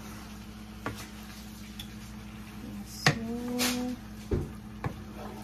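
Cookware clatter as a wooden spoon stirs and knocks beef chunks around a skillet, with scattered knocks and a loud clank about three seconds in, followed by a short ringing tone from the pan. A steady low hum runs underneath.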